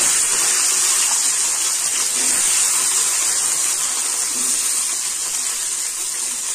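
Peeled garlic cloves sizzling as they are dropped by the handful into hot sesame oil; a loud, steady frying hiss that eases slightly toward the end.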